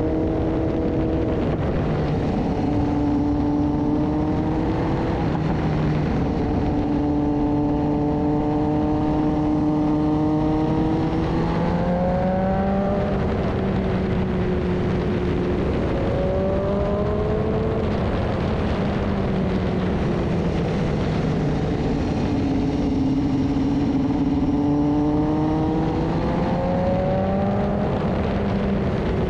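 BMW S1000RR sportbike's inline-four engine running at road speed, its pitch holding steady for long stretches, then climbing a little past ten seconds in and again near the end, and dropping in between as the throttle is worked through the corners. A steady rush of wind noise lies underneath.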